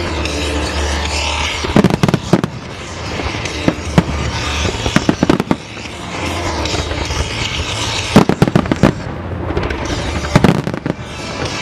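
Fireworks display: four volleys of rapid bangs and crackling from shells and ground-launched fan volleys, a few seconds apart.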